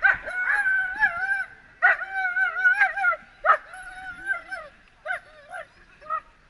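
Dog whining and yelping in a string of high, wavering cries, some drawn out for about a second, typical of an excited, restless dog held back on its leash. The cries are loudest in the first half and become shorter and quieter toward the end.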